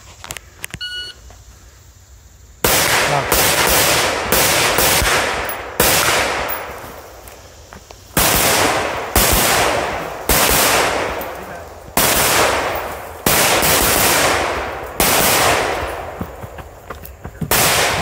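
A short beep about a second in, then a long series of rifle shots fired in quick strings of two to six with short pauses between, each shot trailing off in a long echo.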